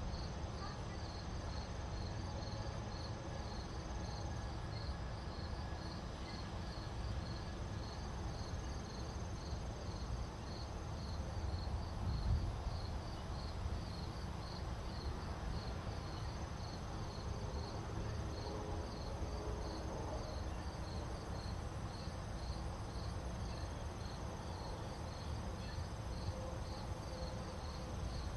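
A cricket chirping steadily, about two chirps a second, over a low steady rumble.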